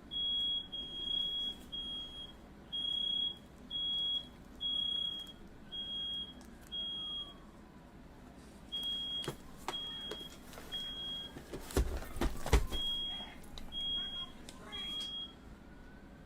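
A smoke alarm sounds, a high-pitched beep repeating about once a second with a short pause midway. A faint rising and falling wail runs underneath, and a few loud knocks come about twelve seconds in.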